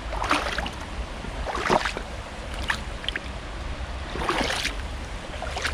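Footsteps wading through shallow water and mud, a few separate splashes about a second apart over a steady low rumble.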